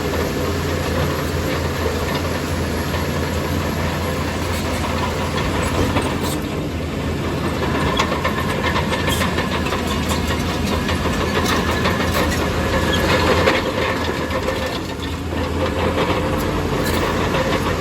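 Heavy construction machine's diesel engine running steadily, with repeated metallic clanks and rattles over it. It swells briefly about two-thirds of the way through, then eases.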